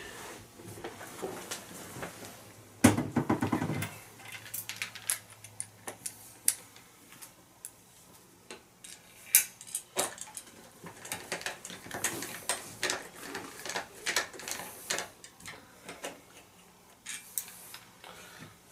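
Scattered metallic clicks, taps and rattles of hands and tools working at a metal ceiling fan mounting bracket and its wires, with a short burst of rapid clattering about three seconds in.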